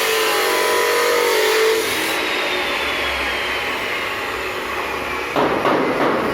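A power tool's motor running under load, its whine slowly falling in pitch, with a burst of harsher grinding noise near the end.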